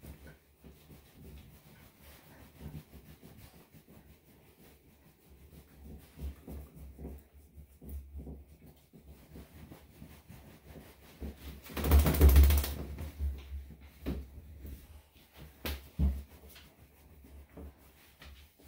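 A terrycloth towel rubbing a wet Yorkshire terrier's coat: soft, uneven rustling with light knocks, and one louder rustle of about a second near the middle.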